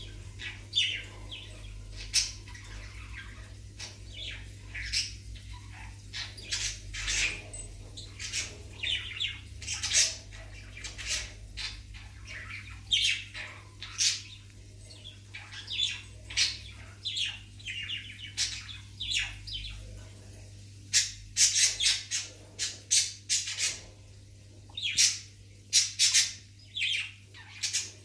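Small birds chirping and squawking in many short, irregular calls, more of them in the second half, over a steady low hum.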